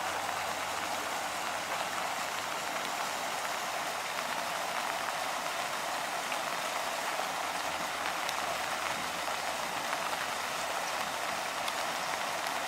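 Water rushing steadily over a creek's small waterfall, an even hiss without change, with a few faint ticks.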